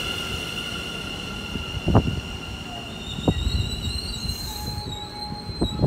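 Electric Sprinter train moving away along the platform, with a low rumble and a steady high whine that fades about three and a half seconds in. A wavering high wheel squeal on the rails sets in around the middle, with a couple of sharp knocks.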